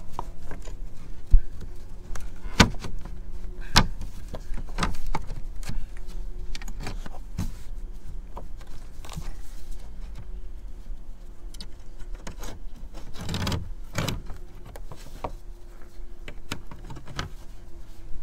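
Scattered sharp clicks and light knocks of copper disc rivets and a hand tool being handled against fibre cement roof slates, with a couple of brief rustles about two-thirds of the way in, over a faint steady hum.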